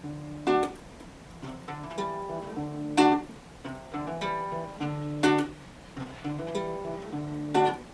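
Acoustic guitar playing an instrumental intro: a strummed chord about every two and a half seconds, with single notes picked between them.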